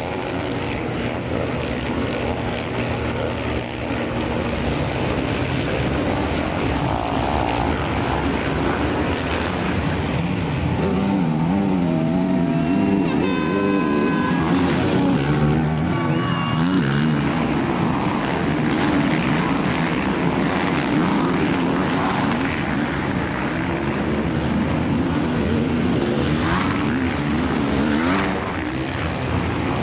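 Dirt bike engines of an enduro race, revving up and down as riders work the throttle through the track's obstacles.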